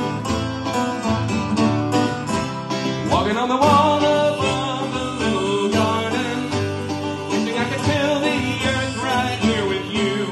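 Five-string banjo and acoustic guitar playing a bluegrass-style instrumental break together. About three seconds in, a harmonica joins with long, bending melody notes over the strumming and picking.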